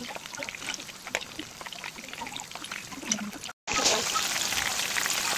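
Batter-coated shrimp deep-frying in hot oil in a pan: continuous crackling and popping. About three and a half seconds in the sound drops out for a moment, then comes back louder and denser.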